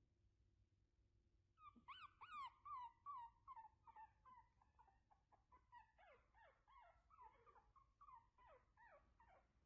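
Shih Tzu puppy whimpering: a quick string of short, high, falling whines, several a second, starting about two seconds in.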